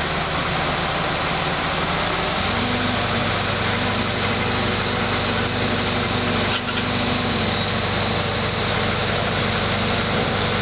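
An engine running steadily, shifting to a new steady speed about two and a half seconds in.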